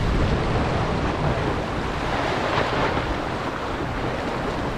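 Wind buffeting the microphone over water rushing along the hull of a sailboat moving at about eight knots, with a louder surge of water about halfway through.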